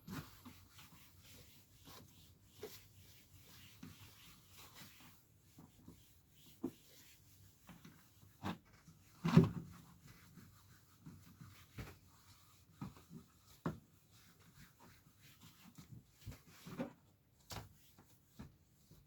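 Soft scratchy rubbing of a polish applicator worked over plastic trim, with scattered light clicks and knocks of handling and one louder thump about nine seconds in.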